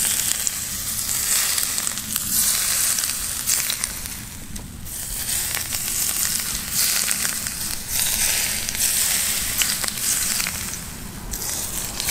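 Hot sesame oil poured over steamed fish fillets topped with raw ginger, scallions and sliced chilies, sizzling and crackling as it hits them. The sizzle swells and eases in waves as the oil is poured.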